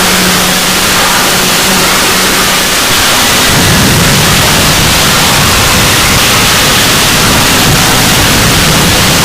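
Extremely loud, heavily distorted noise like harsh static, filling the whole range. A low steady tone runs under it for the first few seconds, and the low end grows rougher about three and a half seconds in.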